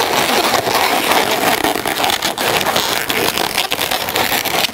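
Latex modelling balloons squeaking and rubbing against each other as black pinch twists are worked in between grey balloon bubbles: a steady, dense rubbing with many small clicks.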